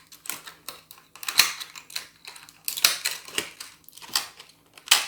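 Toy packaging being handled: an irregular run of clicks and crinkles, with a few sharper clicks among them.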